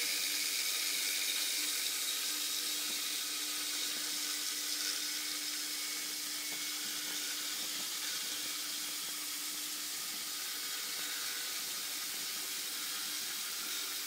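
CNC milling machine cutting a mold cavity with coolant spraying: a steady, even rushing sound like running water over a steady hum from the spindle.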